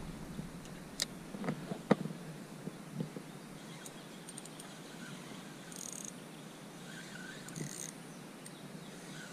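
Quiet outdoor lake ambience with faint high-pitched bird chirps now and then, and a few light knocks and clicks in the first three seconds from handling gear aboard the inflatable kayak.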